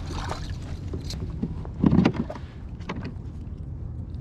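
Small bass being reeled in and lifted aboard a plastic fishing kayak: scattered clicks and knocks from handling rod, fish and gear, with one loud thump about two seconds in, over a steady low rumble.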